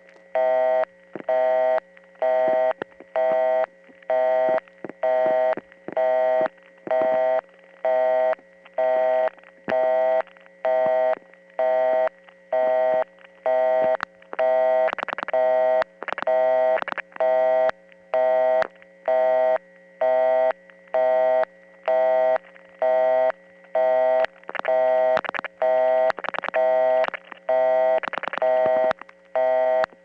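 Busy signal on a line into a Bell System 701 PBX, the talkable kind, pulsing on and off in a steady rapid rhythm over a constant low hum. Faint crosstalk and clicking dial pulses come through it around the middle and again near the end.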